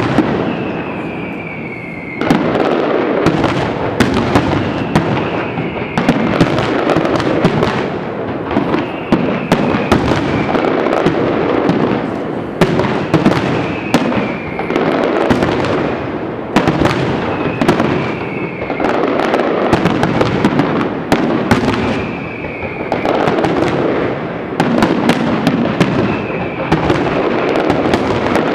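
Fireworks display: a dense, continuous run of shell bursts, bangs and crackling, with a short falling whistle recurring about every four seconds.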